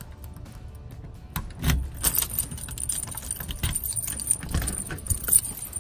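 Keys jangling and a door lock clicking as a key turns in a deadbolt and the doorknob is turned to open the door. The clicks and rattles start about a second and a half in and come in an irregular run.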